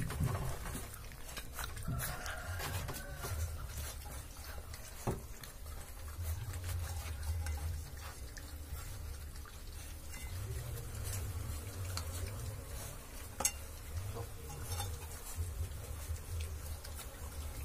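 Rottweiler puppies lapping and licking curd from a metal frying pan, with many small clicks and scrapes of tongues, teeth and paws against the pan.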